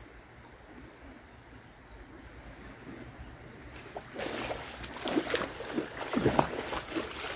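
A pike thrashing and splashing at the surface close to the bank, a burst of irregular splashes that starts suddenly about four seconds in. Before it there is only the low wash of the river.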